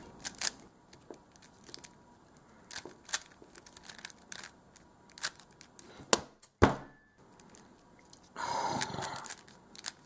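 GAN356 Air plastic 3x3x3 speedcube being turned by hand: scattered clicks and clacks as its layers turn and snap into place. Two louder knocks come about six seconds in, and a short rasping burst of rapid turns comes near the end.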